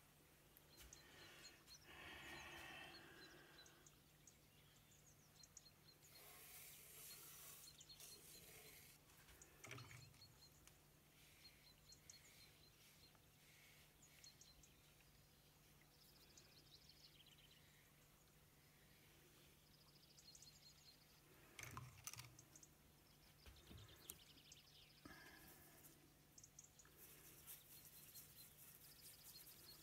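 Near silence, with a faint swish of a watercolour brush on card and a few soft taps and knocks, the sharpest about 22 seconds in.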